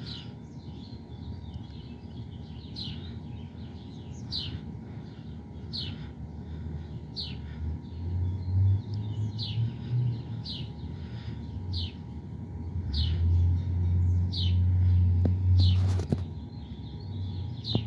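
A bird calling over and over outdoors, one short falling chirp about every second and a half. Underneath runs a low rumble that grows louder about eight seconds in and again near the end.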